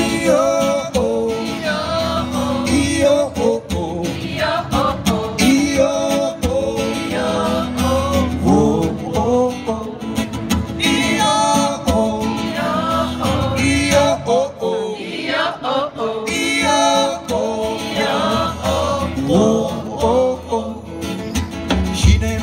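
A live band playing a song: singing over strummed acoustic guitar, with other voices joining in.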